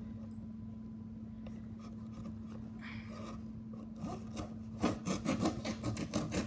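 Cardboard box being handled and scraped open: faint scrapes, then a quick run of rough scratching strokes near the end, over a low steady hum.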